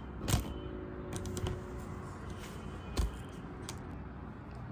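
Scattered light clicks and taps from objects being handled on a table, with two firmer knocks, one about a third of a second in and one about three seconds in, over a steady low hum.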